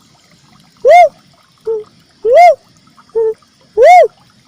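Cuckoo-dove (uncal merah) lure call: three loud, hollow whooping notes about a second and a half apart, each rising then falling in pitch, with a shorter, softer, lower note after each of the first two.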